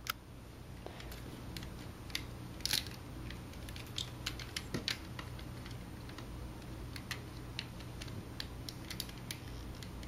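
Lego bricks being handled and pressed together: scattered small plastic clicks and taps, irregular, with one louder click about three seconds in, over a faint steady low hum.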